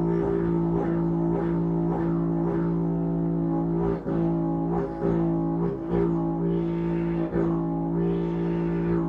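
Didgeridoo drone held steady while the player's tongue moves freely inside it, shaping it with frequent quick flicks of tone and a few brief dips in the sound.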